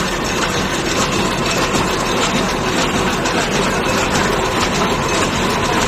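PRY-DP100 fully automatic paper cup making machine running at speed: a steady, dense mechanical clatter of rapid ticks from its cup-forming turrets over a constant hum.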